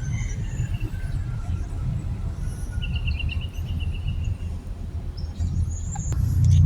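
Birds chirping, including a short rapid trill a few seconds in, over a steady low outdoor rumble.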